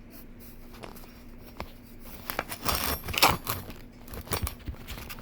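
Hand-work noises while assembling a steel-cable hold-down: a run of irregular metal clinks, rattles and rustles starting about halfway through, over a faint steady hum.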